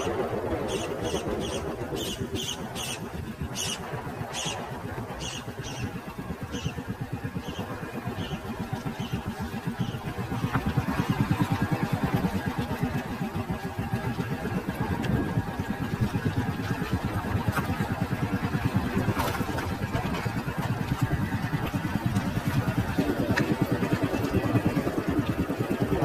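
Motorcycle engine running steadily as the bike rides along, growing louder about ten seconds in. Over the first several seconds, short high chirps repeat about twice a second and fade away.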